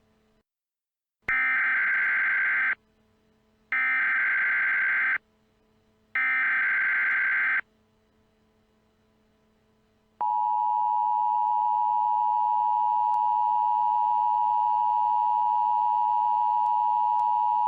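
Emergency Alert System SAME header: three short, identical bursts of digital data tones, each about a second and a half long. About ten seconds in, the EAS attention signal begins, a steady two-tone alarm at 853 and 960 Hz that marks the start of an alert.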